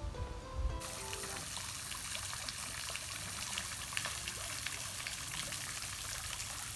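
A few notes of background music die away in the first second. Then comes a steady hiss of running water with small crackles, as from a trickling stream, which starts and stops abruptly.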